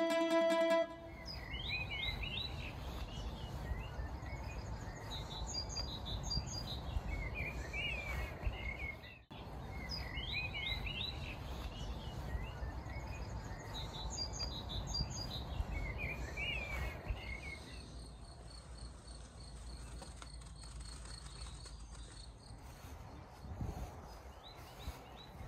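Outdoor ambience of birds singing in short chirping phrases that come back every few seconds over a steady low wind rumble, with a faint high insect-like buzz in the later part. A strummed acoustic guitar cuts out about a second in.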